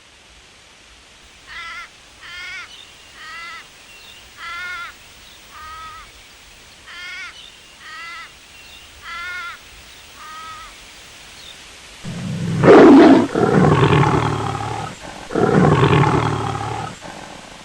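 A bird gives about nine short, harsh, caw-like calls roughly a second apart. Then a large animal roars loudly three times.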